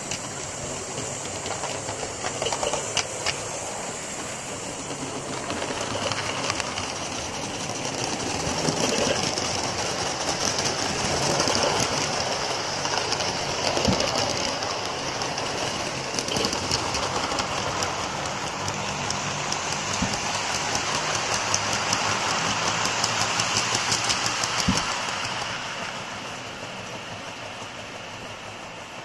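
Gauge 1 model of the BR 18 201 steam locomotive and its train running on layout track: a rapid, dense clatter of wheels and running gear that grows louder as it passes close and fades near the end as it draws away.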